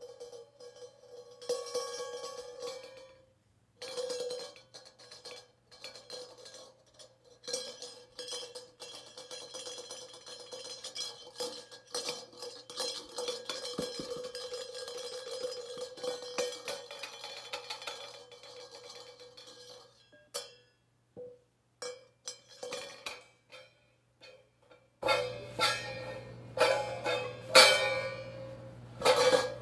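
Cymbals struck and tapped with a drumstick in free, unmetered playing: many quick strikes over a sustained ringing tone. After about twenty seconds the playing thins to a few scattered taps, then turns to louder strikes for the last few seconds.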